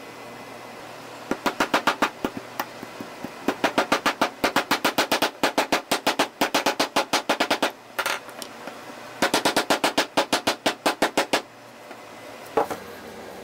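A small hammer tapping rapidly on a paintbrush's metal ferrule resting on a wooden block: three runs of strikes at about seven or eight a second, then a single knock near the end.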